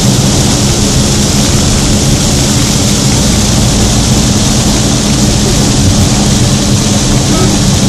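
Heavy rain beating on a car's roof and windshield, heard from inside the cabin, over a steady low engine hum.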